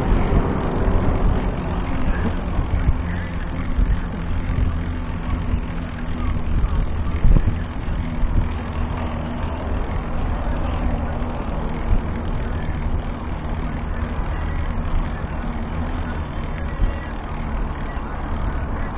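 Steady engine drone and road noise from a moving vehicle, with one short bump about seven seconds in.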